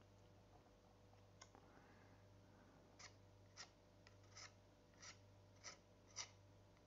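Metal palette knife scraping oil paint across a textured OSB painting board in short, faint strokes: one early on its own, then about six quick rasps roughly every half second in the second half.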